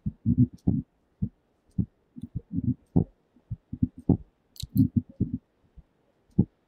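Footsteps on a hard corridor floor: a string of short, dull thumps at an uneven walking pace, with a couple of faint clicks a little past halfway.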